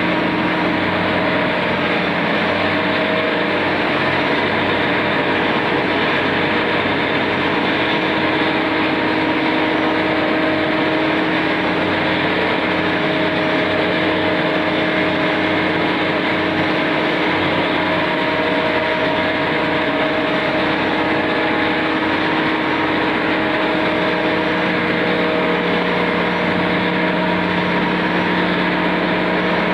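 Electric spice grinding machine running steadily: a constant motor hum under the dense whirring rush of the grinding chamber, with no change in pace.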